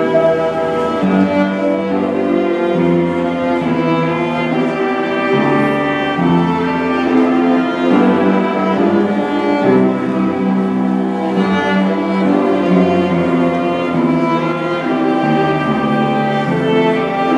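Two violins playing a Christmas carol melody with upright piano accompaniment, the notes sustained and overlapping.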